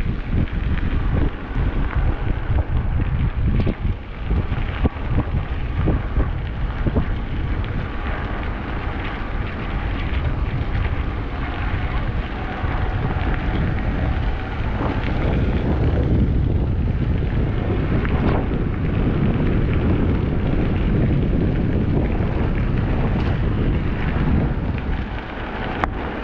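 Wind buffeting the microphone of a camera riding along on a moving e-bike: a steady, heavy rumble.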